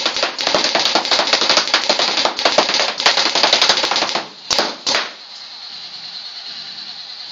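Proto Rail Reflex paintball marker firing a rapid, unbroken string of shots, then two last single shots about four and a half seconds in before it stops.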